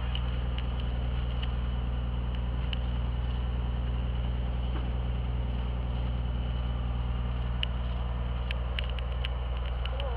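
Single-engine light aircraft's piston engine and propeller running steadily, heard from inside the cabin as the plane taxis. A few light clicks sound near the end.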